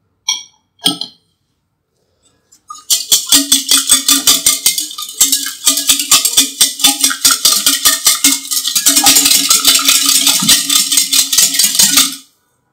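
Two short clinks, then a wire whisk beating pancake batter in a bowl: quick, rapid rattling strokes that stop suddenly near the end.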